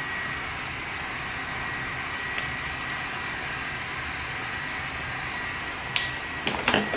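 Steady room hiss with a faint constant high whine. Near the end, a few sharp clicks and taps as makeup items are handled.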